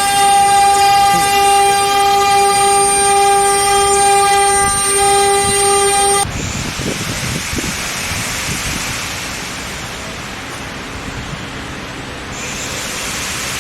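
CNC router's 3.2 kW water-cooled spindle running with a steady high whine while milling an epoxy panel. About six seconds in the whine cuts off abruptly, leaving a quieter, even rushing noise.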